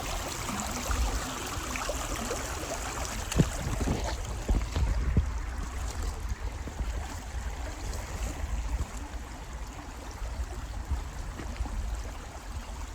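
Creek water running steadily, with a low rumble underneath and a few sharp knocks between about three and five seconds in.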